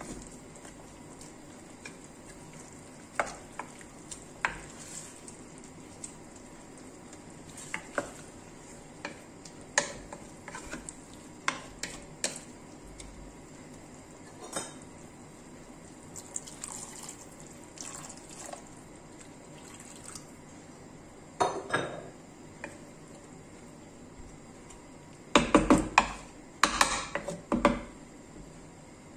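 Wooden spoon knocking and scraping against a terracotta pot of chicken pieces in tomato sauce, in scattered single clicks with a louder run of knocks near the end. A faint steady sizzle of the food cooking runs underneath.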